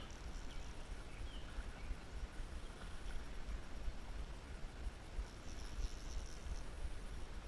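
Steady outdoor background noise: a low rumble under an even hiss, with a faint high-pitched chirping from about five to six and a half seconds in.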